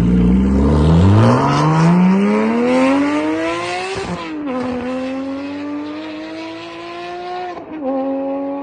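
Porsche 718 Cayman GT4's flat-six through a JCR aftermarket exhaust, accelerating hard away. The engine note climbs, drops at an upshift about four seconds in, climbs again and drops at a second upshift near the end, fading as the car pulls away.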